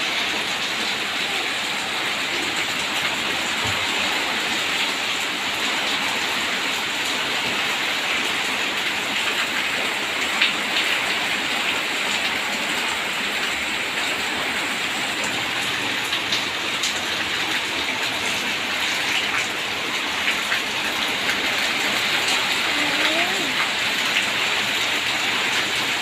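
Heavy rain pouring steadily in a storm with strong wind: an even, unbroken hiss with scattered clicks of drops striking surfaces.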